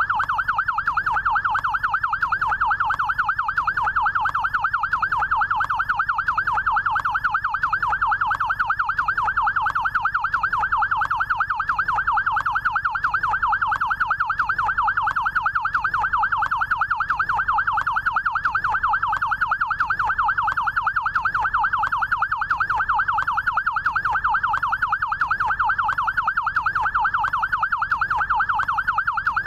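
Electronic yelp siren of a SAMU rescue motorcycle, sounding steadily: a rapid up-and-down sweep in pitch that repeats evenly without a break.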